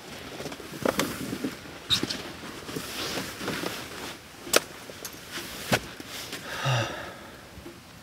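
Fabric rustling with a scatter of sharp clicks and knocks as a person lies down on a camp cot and settles into a sleeping bag.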